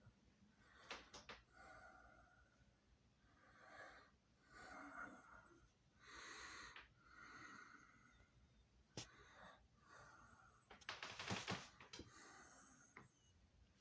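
A cat yawning, making faint breathy exhalations over and over, with the loudest breathy huff about eleven seconds in.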